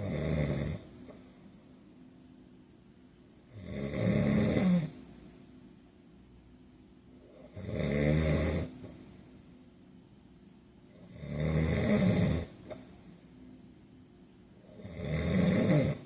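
A man snoring in his sleep: five snores about four seconds apart, each lasting about a second, swelling and then cutting off sharply.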